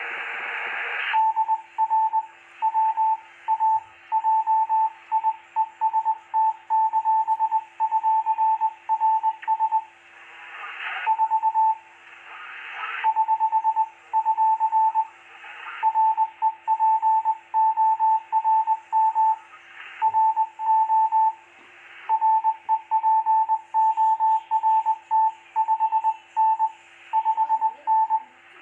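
Morse code (CW) received over an HF amateur radio transceiver: a single mid-pitched tone keyed on and off in quick dots and dashes, starting about a second in, over receiver hiss and a faint steady hum.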